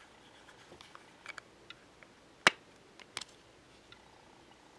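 Plastic and metal eyeshadow compacts clicking as they are handled. There are a few light ticks, then one sharp click about two and a half seconds in, and a quick double click just after three seconds.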